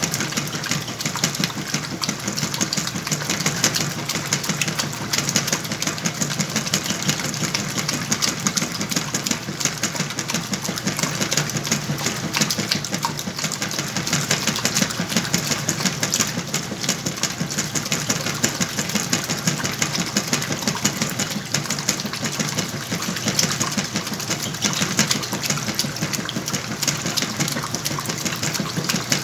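Whirlpool washing machine running steadily with a load of sheets and pillows: an even mechanical hum with a fast, continuous clatter.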